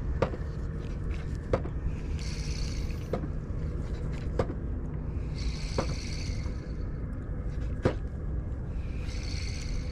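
Spinning reel being wound in short spells, a high whirring hiss about a second long heard three times, over a steady low rumble, with a sharp knock every second or two.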